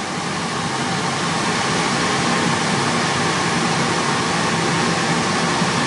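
Steady rush of cooling air with a faint low hum from the running 3CX6000A7 6-meter linear amplifier, keyed up on a carrier. The sound grows slightly louder over the first second.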